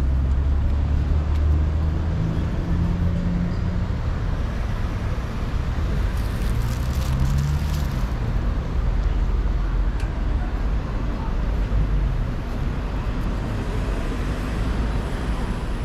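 City street ambience: a steady low rumble of road traffic, with engine sound rising and falling and a brief faint hiss about six seconds in.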